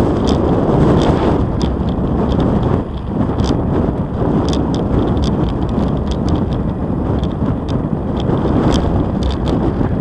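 Wind buffeting the microphone of a camera on a moving bicycle, mixed with tyre noise rolling on an asphalt path, with scattered light clicks and rattles.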